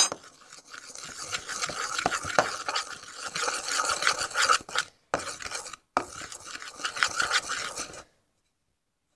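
A spoon stirring and scraping a stiff glue, dish-soap and flour mixture in a container, a continuous scratchy scraping with small clicks of the spoon. It drops out briefly twice around five and six seconds in and cuts off suddenly about eight seconds in.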